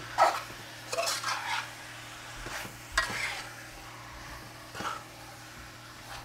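Slotted metal spoon stirring and scraping pieces of curry chicken around a metal pot, in four strokes, the loudest near the start. A low sizzle from the pot runs underneath.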